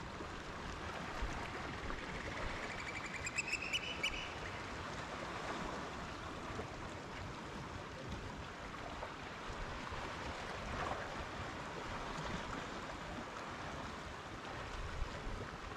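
Gentle water lapping around a kayak, with a brief run of rapid clicks rising in pitch about three seconds in.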